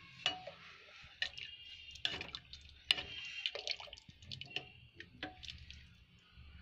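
Steel ladle stirring a pot of thin curry gravy, clinking and scraping against the metal pot in a string of short, irregular taps that ring briefly, with soft sloshing of the liquid.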